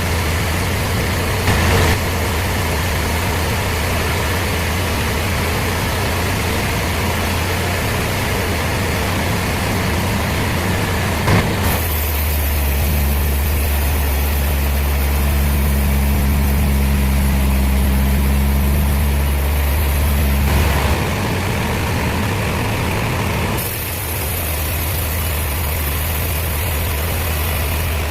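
A heavy engine running steadily with a deep hum, its sound changing abruptly a few times.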